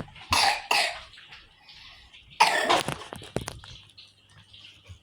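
A person coughing a few times in short bursts, with quieter gaps between.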